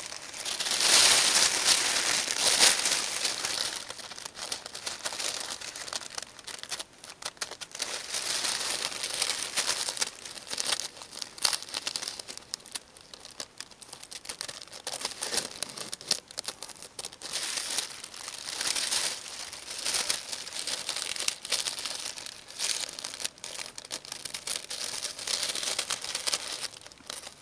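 Thin tissue-paper sewing pattern rustling and crinkling as it is handled and folded, loudest in the first few seconds.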